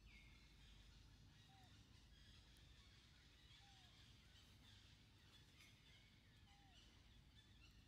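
Near silence: faint outdoor ambience with distant birds chirping and trilling, and three short, faint falling calls spaced a couple of seconds apart.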